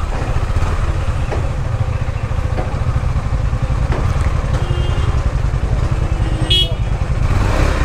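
KTM 390 Duke's single-cylinder engine running at low revs as the bike creeps along, a steady low chugging. A brief high-pitched toot about six and a half seconds in.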